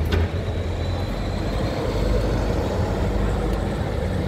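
Red London double-decker bus driving past close by, its engine giving a steady low hum over street traffic noise. A sharp click comes just after the start.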